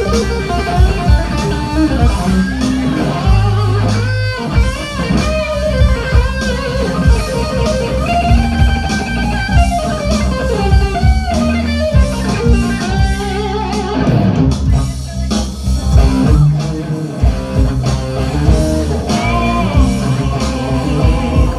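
Live rock band playing, with electric guitar, bass guitar and drums.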